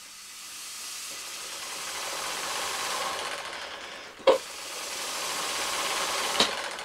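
Air hissing through a UGears wooden pneumatic engine kit, swelling and easing twice, with a sharp knock about four seconds in and a smaller click near the end.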